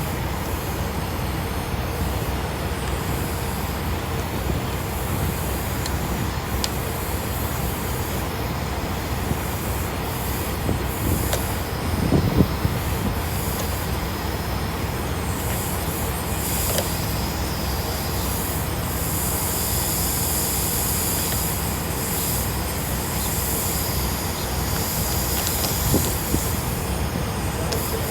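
Steady truck engine rumble with a constant hiss, the hiss growing stronger in the second half and a brief louder bump about twelve seconds in.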